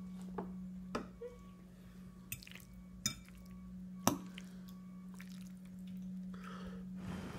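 Scattered wet clicks and taps of a fork on a plastic high-chair tray and of a toddler eating pasta with her fingers, over a steady low hum.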